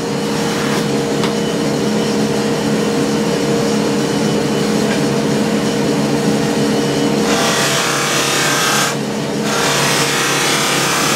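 Motor-driven buffing wheel running with a steady hum as an aluminum radiator is pressed against it for polishing. The polishing hiss grows louder about seven seconds in, drops briefly around nine seconds, then comes back.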